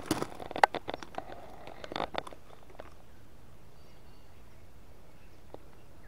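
Footsteps crunching and crackling on dry leaf litter and bark in a quick run of crackles over the first couple of seconds, then quiet bush with a faint high bird chirp about four seconds in.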